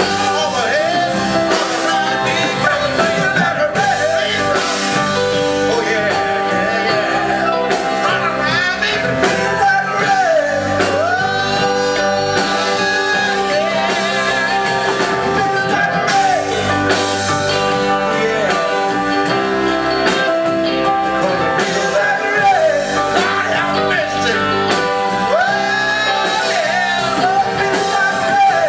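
Live blues band playing a song: a man singing over electric guitar, bass, drums, trumpet and saxophone.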